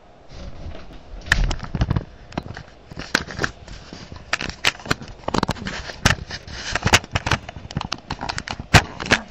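Handling noise on a webcam: an irregular run of sharp clicks, knocks and rustles as the camera is moved and adjusted.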